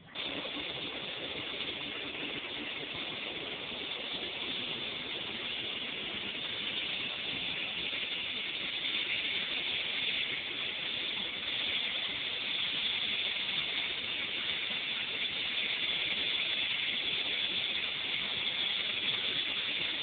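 Steady rushing noise of an airliner's engines and airflow heard inside the cabin, slowly growing a little louder.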